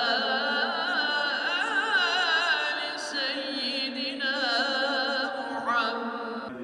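A man chanting Islamic religious recitation in the mosque, one voice holding long, heavily ornamented notes that waver and turn rapidly in pitch.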